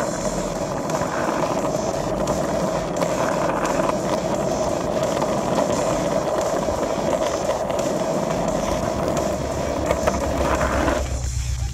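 Skateboard wheels rolling over coarse asphalt: a steady, grainy rumble that cuts off about eleven seconds in, when music takes over.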